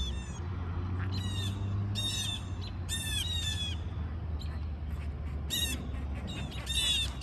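Birds giving short, harsh squawking calls in repeated clusters, the alarm calls of small birds mobbing a hawk. A steady low hum runs underneath.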